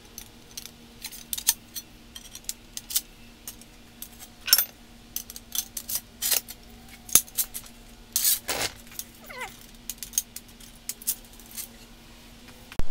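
Steel rail sections of a Genie belt-drive garage door opener clicking and clanking again and again as they are handled and fitted together. A faint steady hum runs underneath.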